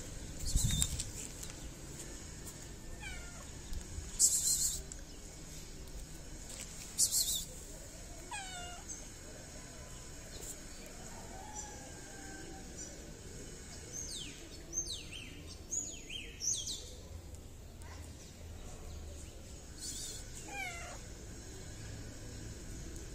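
Stray cat meowing on and off, each call falling in pitch, with a quick run of higher calls around the middle. Three short, loud bursts of hiss come in the first seven seconds and are the loudest sounds.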